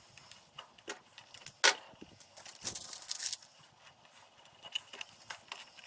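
Small metal parts and hand tools clinking and clicking as they are handled, with one sharp click a little over a second and a half in and a short scraping rustle around the middle.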